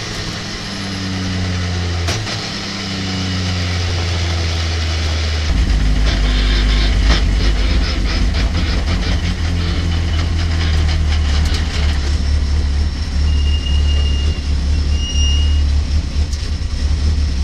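Race pickup truck's engine heard from inside its stripped cabin, its pitch falling in steps as the truck slows, then settling at about five seconds in to a low, steady run at crawling pace with a spell of rattling and clicks.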